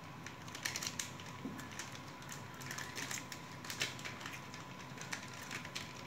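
Fingertip presses on a 4x4 membrane keypad: a scattering of light, irregular clicks and taps, some in quick pairs.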